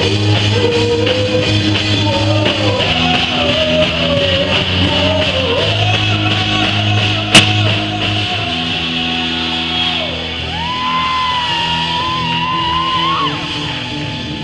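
Live band playing a reggae song in a large hall, with a melody line held over steady bass and guitar, and a single sharp click about seven seconds in.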